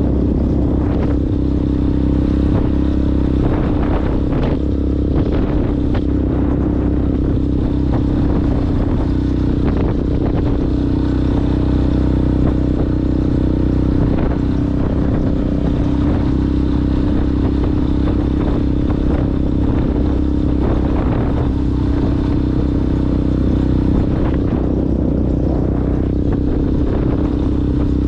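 Yamaha Ténéré motorcycle with a Coyote aftermarket exhaust running at a steady engine speed while riding off-road, with scattered clatter and knocks from the rough ground.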